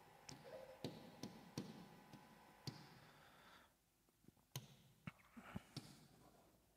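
Near silence broken by faint, irregular clicks and taps of a pen striking the glass of an interactive whiteboard display as a transistor symbol is drawn.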